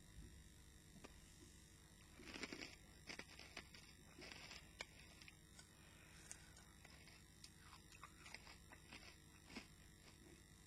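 Faint crunching and chewing of pork crackling: a few short crunchy bursts and scattered small clicks.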